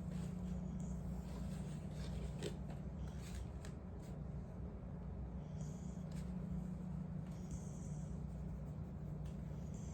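A freshly bathed dog making a low, purr-like rumbling snore while being blow-dried, over the steady hum of the dryer. A few brief rubbing, scratchy sounds of hands or a brush on its fur come between about two and four seconds in.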